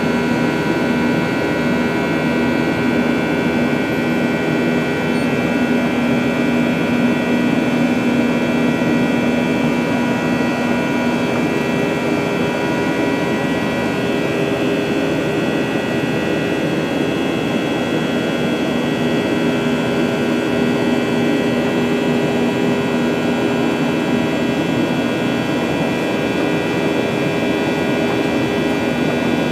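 Steady jet engine drone heard inside the cabin of a Boeing 737-900ER, its CFM56-7B turbofans running at a constant setting, with several steady whining tones over the rushing noise.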